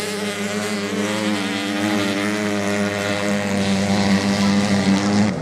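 Motocross bike engines running as the bikes race on sand: a loud, steady engine note that wavers slightly up and down with the throttle.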